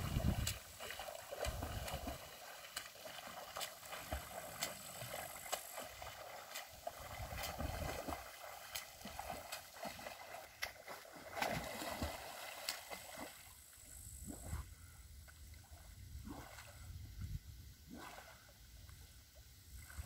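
A person swimming in a lake, arm strokes splashing the water again and again at an uneven pace, with occasional low rumbles. The splashing is softer in the last third.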